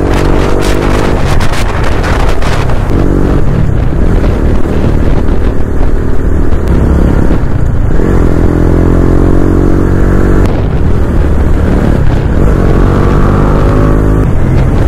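A motor vehicle's engine running loud over a heavy low rumble, its pitch rising several times as it accelerates through the gears.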